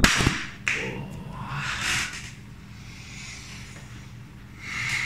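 A thump and rubbing noise as the camera is handled and set down, then a man breathing out hard through his nose twice, about two seconds in and again near the end.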